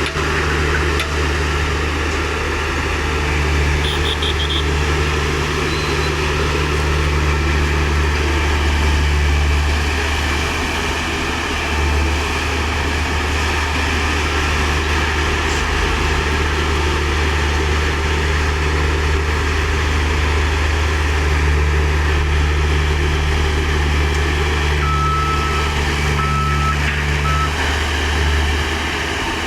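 Heavy earthmoving machinery diesel engines running steadily under load. A few short reversing-alarm beeps sound about four seconds in and again near the end.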